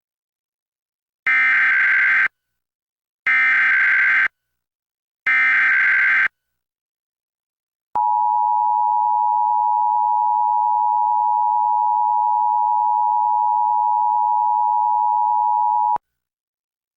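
Emergency Alert System header for a Required Monthly Test. Three one-second bursts of warbling SAME digital data tone, about a second apart, are followed by the steady two-tone EAS attention signal, which holds for about eight seconds and cuts off abruptly.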